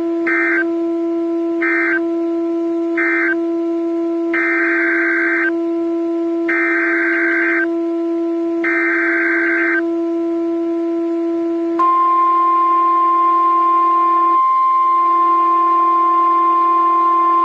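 Emergency Alert System tones on NOAA Weather Radio. First come three short buzzy SAME data bursts, the end-of-message code closing the marine warning. Then come three longer bursts about two seconds apart, the header of the next alert, and about twelve seconds in the steady weather radio warning alarm tone starts and holds. A steady droning tone runs underneath throughout.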